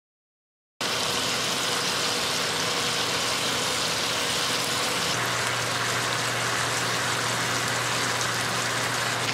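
Stove's vent fan running with a steady whoosh and low hum, over beef bulgogi simmering and sizzling in its marinade in a cast iron skillet. The sound starts abruptly about a second in.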